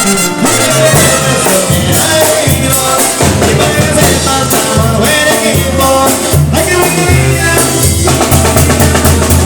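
Sinaloan-style banda music: an instrumental passage of a corrido, with a tuba bass line under brass and drums.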